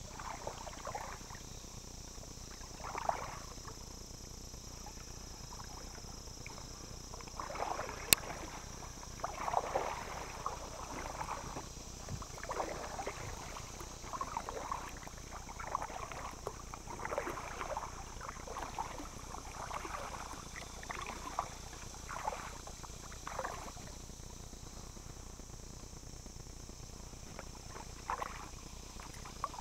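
Kayak paddle strokes splashing and dripping in calm water, about one a second with a couple of pauses, and a single sharp click about eight seconds in. A steady high hiss runs underneath.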